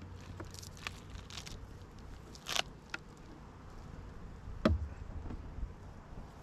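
Beehive being worked by hand: scattered clicks and scrapes of wooden hive parts, then one sharp knock with a thump about four and a half seconds in, over a low steady hum with honeybees buzzing.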